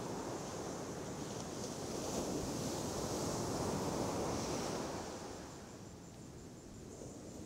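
Sea surf washing up on a sandy beach: a steady rush of breaking waves that fades down about five seconds in, with some wind on the microphone.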